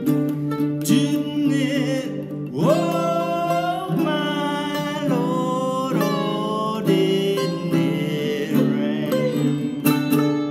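Sitar and baritone ukulele playing together, plucked notes over a steady accompaniment, with melody notes that bend and glide in pitch.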